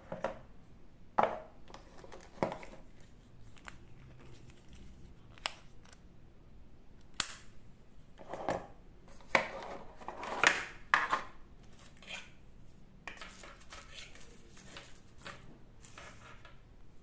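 A small cardboard box and its plastic insert being opened and unpacked by hand: scattered taps, clicks and short rustles, loudest in a cluster between about eight and eleven seconds in.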